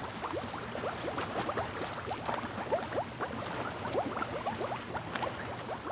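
Underwater bubbling sound effect: many small bubbles, each a short rising blip, scattered irregularly over a soft hiss.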